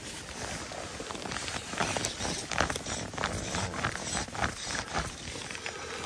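Irregular soft clicks and rustles of jacket fabric, gloves and fly line being handled close to the microphone while a fly line is stripped and cast.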